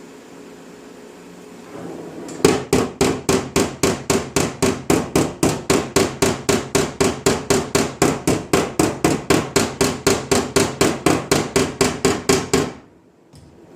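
A hammer tapping on a steel van body panel in a steady run of about four strikes a second, each with a metallic ring. The strikes start a couple of seconds in and stop abruptly near the end.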